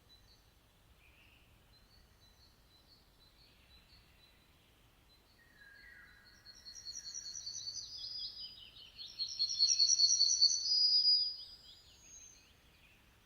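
Songbirds singing: faint scattered chirps at first, then a louder song of fast trilled and repeated high notes that builds about six seconds in, is loudest around ten seconds and stops sharply near the end.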